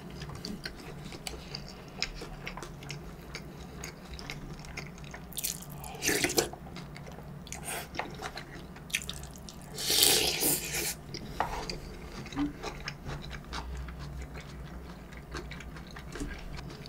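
Close-up eating sounds from a bowl of jjamppong broth: small clicks of a spoon against the bowl and wet mouth sounds, with two loud slurps about six and ten seconds in.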